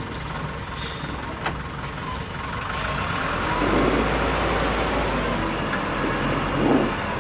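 Excavator running with a steady low rumble while it digs soil and loads it into a small truck, getting a little louder partway through.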